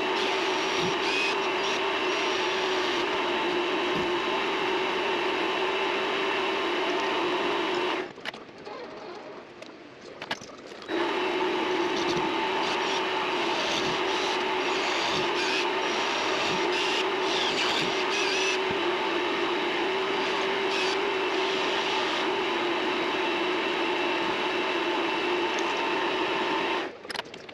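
Vevor MX400 mini lathe running with a steady motor whine. It stops about eight seconds in, starts again about three seconds later, and runs until it stops just before the end.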